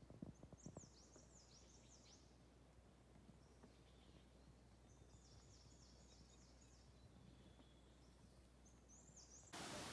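Faint bird song: three short runs of quick, high, downward-sweeping chirps over a very quiet outdoor background. Near the end the sound cuts to a steady hiss.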